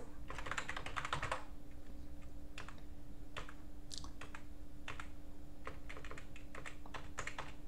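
Computer keyboard keystrokes: a quick run of typing in the first second and a half, then single key presses every half second or so, over a faint steady hum.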